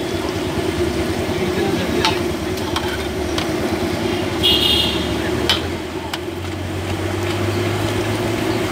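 Battered potato chops deep-frying in a large pan of hot oil, sizzling steadily, with a perforated metal skimmer clinking against the pan a few times. A steady low hum runs beneath.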